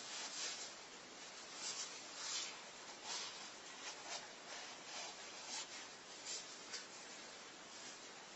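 Short, irregular scraping strokes of a hand tool rubbing on a small workpiece held in the hands, roughly one or two a second, over a steady hiss.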